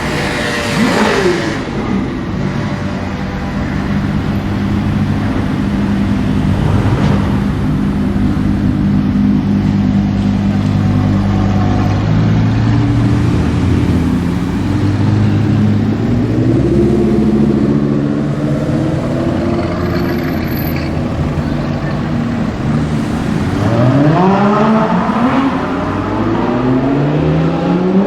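Audi R8 V10 Plus's V10 engine through a Capristo exhaust: the revs fall away at the start, then a steady low-rev rumble for about twenty seconds, then hard accelerations near the end with the pitch rising in steps through the gears.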